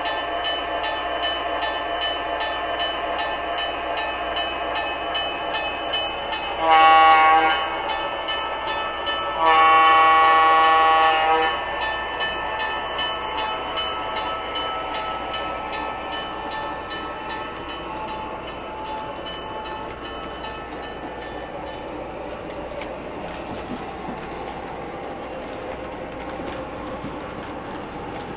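O-gauge model Seaboard Centipede diesel locomotives running under their onboard sound system, which plays diesel engine sound and sounds the horn twice: a short blast about seven seconds in and a longer one about ten seconds in. The sound fades as the locomotives move away.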